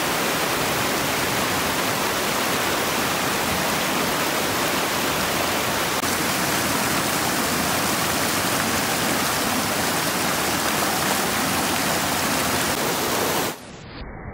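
Creek water rushing over rocks in a small cascade, a steady full splashing rush that drops away abruptly near the end.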